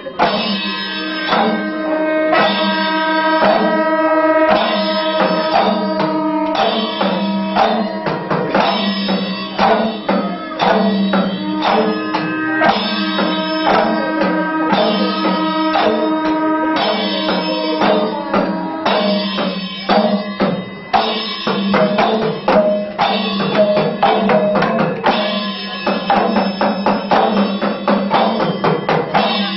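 Panchavadyam, the Kerala temple ensemble, playing: timila and maddalam drums beating dense, rapid strokes over held tones from the curved kombu horns.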